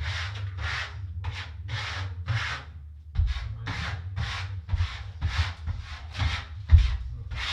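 A trowel scraping thinset mortar over the shower wall's backer board. It makes a steady run of short scraping strokes, about two a second.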